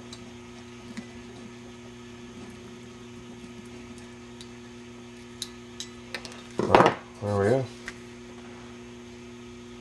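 Scattered light clicks and ticks of small hand tools chipping hardened, brittle old rubber cord off a metal television part, over a steady electrical hum. About seven seconds in comes a louder brief clatter, then a short murmur from a man's voice.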